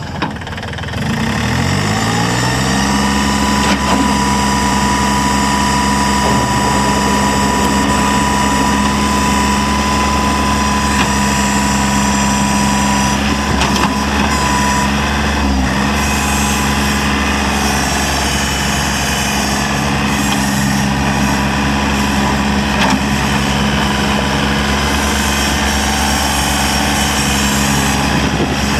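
John Deere 3120 compact tractor's three-cylinder diesel engine speeding up over the first couple of seconds, then running steadily at raised throttle as the tractor drives. A steady high whine sounds over it through about the first half.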